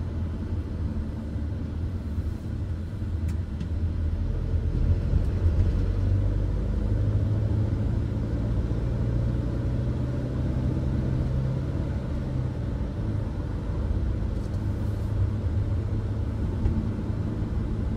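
Mercedes-Benz Sprinter van driving, heard from inside the cab: a steady low engine and road rumble. The engine note rises about a quarter of the way in as the van picks up speed, holds, then eases off about two-thirds through.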